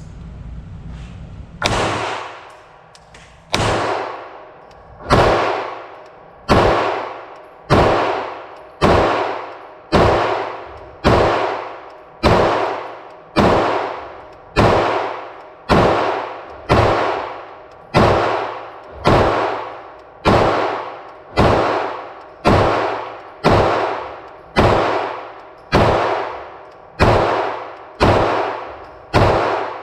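9mm pistol in a META Tactical MX-1 chassis fired semi-automatically at a steady pace, about one shot a second, some two dozen shots in all. Each report trails off over about a second. The first two shots come about two seconds apart.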